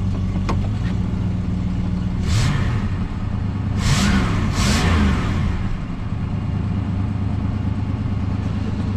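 1973 Dodge Dart's 318 small-block V8 idling in gear, blipped three times: once about two seconds in and twice in quick succession near the middle, each rev rising and falling before it settles back to idle. It runs smooth with no misfire.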